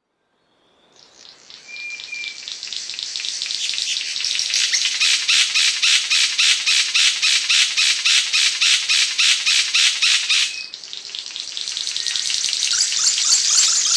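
Cendrawasih panji singing: a long, harsh, sizzling buzz that swells up, breaks into rapid rattling pulses about three or four a second, cuts off abruptly, then starts building again.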